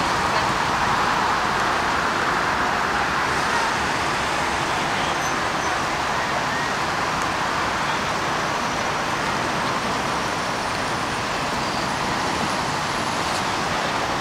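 Steady freeway traffic noise: an even, unbroken rush of vehicles.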